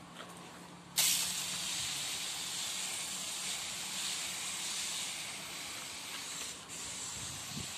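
Hand sprayer misting a liquid fertilizer solution onto plants: a steady hiss that starts abruptly about a second in and holds even.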